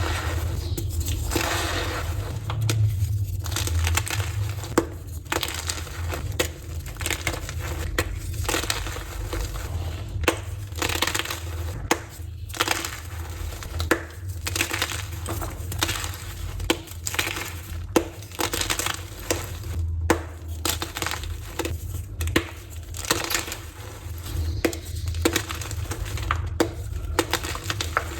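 Blocks of reformed gym chalk crushed by hand: a dense run of short, crisp crunches, several a second, over a steady low hum.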